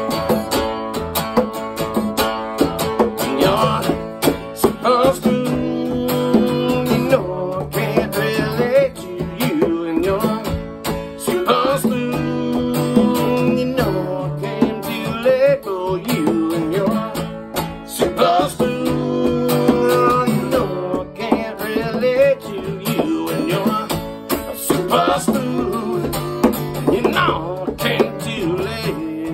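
Acoustic guitar playing an instrumental break, with a hand drum tapping out the beat.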